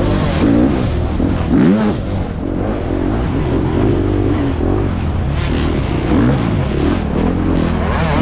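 FX350 dirt bike's single-cylinder four-stroke engine revving up and falling back again and again as the throttle is worked on and off.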